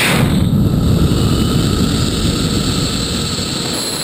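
Rocket in powered ascent, heard from a camera on its body: the motor's burn and rushing air as a steady, loud, low rumble that eases slightly toward the end.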